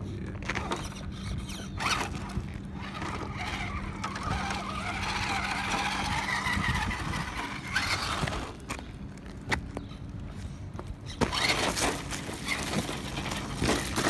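Axial Deadbolt RC rock crawler's electric motor and gearbox whining as it climbs, the whine rising and falling with the throttle around the middle, with a few crunches on gravel and stone in the second half.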